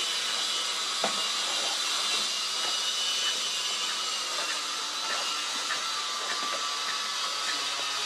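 Cicadas calling in a steady, high-pitched drone, with a single click about a second in.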